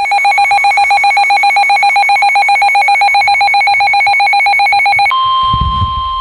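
Emergency alert tones: a loud, rapidly pulsing electronic alert tone for about five seconds, which switches suddenly to a steady weather-radio warning alarm tone, with a brief low rumble just after the switch.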